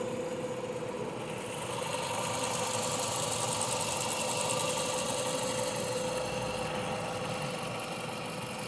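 Nissan Sentra's four-cylinder engine idling steadily; the engine suffers from sporadic misfires.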